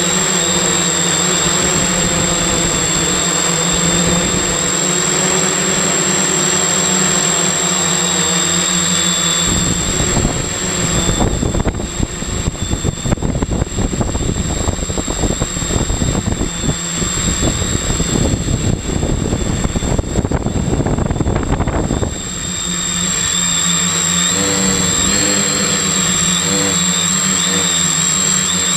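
Electric motors and propellers of a multirotor drone, heard from its onboard camera: a steady motor whine with high tones. From about ten seconds in until about twenty-two seconds, a loud, fluttering rush of air covers the whine. Then the whine returns, its pitch wavering as the motors change speed.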